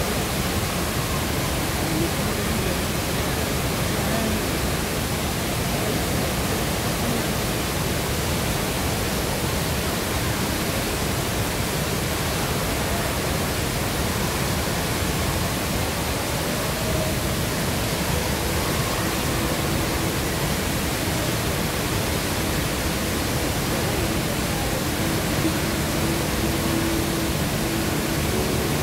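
Steady rushing of the HSBC Rain Vortex, a 40-metre indoor waterfall pouring from the roof into its basin, unbroken throughout.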